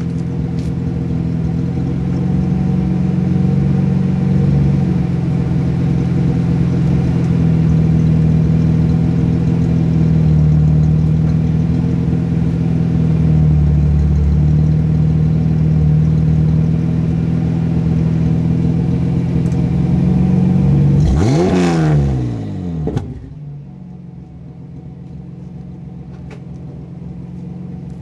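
Megasquirt fuel-injected GM 3.1L 60-degree V6 in an MGB GT, heard from behind at the tailpipe, running steadily at a raised speed. About three-quarters of the way through it is blipped once, rising sharply and falling back, then settles to a noticeably quieter idle.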